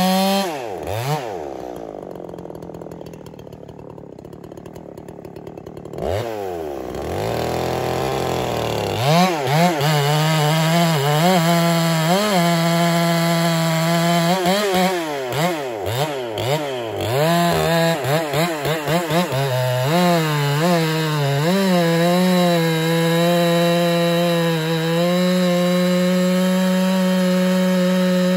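Husqvarna 372 two-stroke chainsaw running. It sits quieter at low speed for a few seconds, then is revved up and down repeatedly, with the engine speed dipping and recovering, before being held at a steady high speed near the end.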